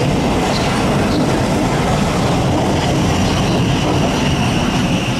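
Class 707 electric multiple unit running past at the platform: a steady, loud rumble of wheels on the rails and the moving carriages.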